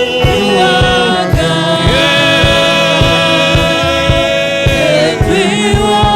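Gospel worship music with singing: a long note held from about two seconds in until about five, over an even, repeating low beat.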